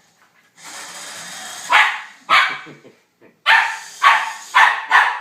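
A puppy barks about six times in short, sharp barks at a radio-controlled toy car, after a brief whirr of the car's electric motor about a second in.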